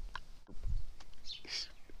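Pet cockatiel making short, high chirping calls, with the brightest ones about a second and a half in. A low thud comes about two-thirds of a second in.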